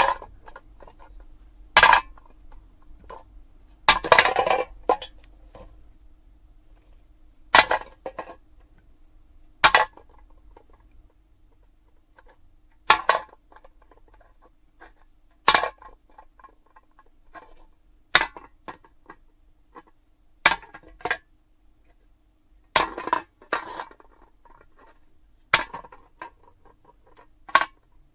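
Aluminium soda can dropped onto a hard surface again and again, about a dozen times, every two to three seconds. Each drop is a sharp metallic clank, often followed by a few smaller clinks as it bounces and settles.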